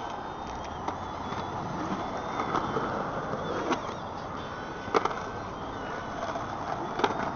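Skateboard wheels rolling on concrete in a steady rumble, with a few sharp clacks of the board, the loudest about five seconds in and another about seven seconds in.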